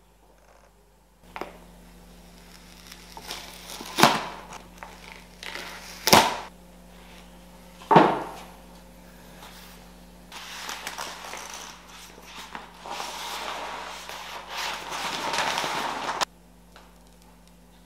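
Three sharp knocks about two seconds apart as the iMac is handled and set down on the counter, then several seconds of paper rustling and crinkling as its paper wrapping is pulled off, cutting off suddenly near the end. A low steady hum lies underneath.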